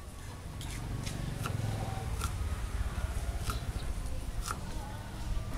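Kitchen knife slicing a peeled onion on a wooden chopping board: a short, sharp knock each time the blade goes through and hits the board, about half a dozen strokes at uneven spacing.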